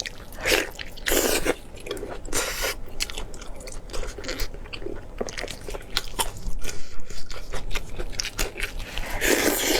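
Close-miked eating: a person biting and chewing food with many short, irregular crunchy clicks and a few louder wet bursts of chewing.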